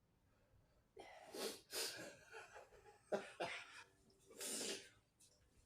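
A person coughing and breathing hard in several short bursts, reacting to the burn of extremely hot chilli noodles.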